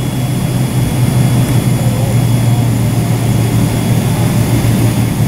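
Cabin noise inside a taxiing Boeing 777-300ER: its GE90-115B jet engines run at taxi power as a steady low hum, with a faint thin high whine over it.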